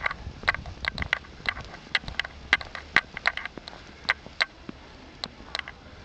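Camera wrist strap tapping against the camcorder's body, a quick irregular run of sharp clicks, two to three a second, thinning out near the end, over a low rumble of wind on the microphone.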